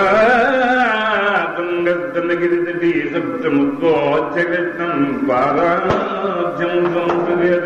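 A voice chanting a devotional verse in a melodic line that glides up and down between long held notes.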